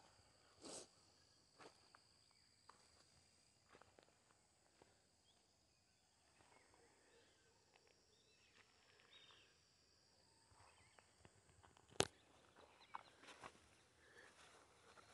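Near silence: faint scattered footsteps and rustling of someone walking among crop plants over a faint steady high-pitched tone, with one sharp click about twelve seconds in.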